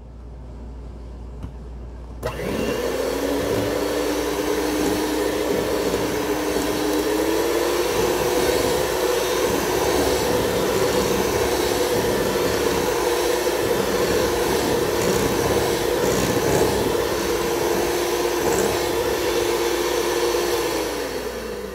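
Electric hand mixer beating cake batter in a glass bowl. The motor starts about two seconds in with a rising whine, runs steadily, steps up to a higher pitch once partway through, and winds down near the end.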